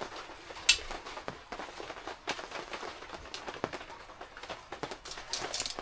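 Irregular knocks, clicks and rustles of camping gear being handled and packed away, with a sharp click about a second in and a brief bright hissy clatter near the end.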